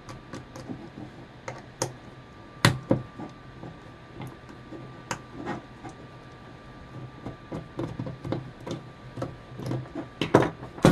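Scattered small clicks and knocks of a screwdriver working the screws out of an intake manifold runner actuator's plastic housing to free its electric motor, with a sharper knock about two and a half seconds in and a quick cluster of clicks near the end.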